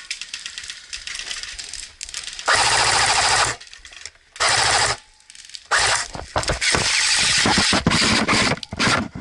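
Airsoft electric guns firing on full auto: faint rapid ticking of fire at first, then loud bursts of rapid shots starting about two and a half seconds in, one of about a second, a shorter one, and then a longer run of short chopped bursts.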